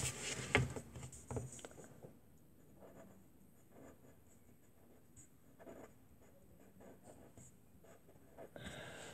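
Handwriting on paper: faint, irregular scratching strokes of a pen on the sheet, a little stronger in the first couple of seconds.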